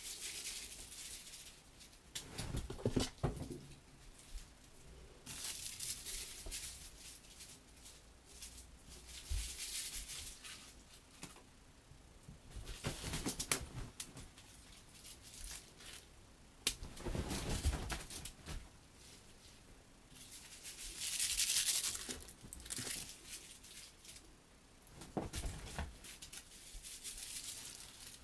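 Mylar toy balls crinkling and bedding rustling in short, irregular bursts as a cat chases and bats the balls across a bed, with a few soft thumps in between.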